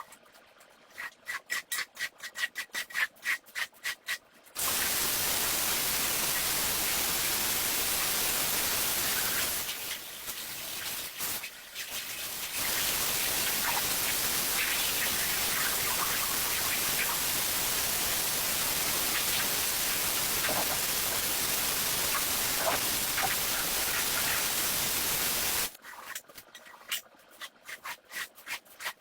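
A stiff brush scrubbing a shag rug in quick regular strokes. A few seconds in this gives way to a long, loud, steady rushing hiss from cleaning equipment, which drops out briefly about ten seconds in. The brush scrubbing returns near the end.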